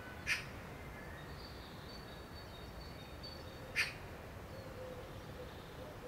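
Male northern cardinal giving two sharp chip calls, about three and a half seconds apart.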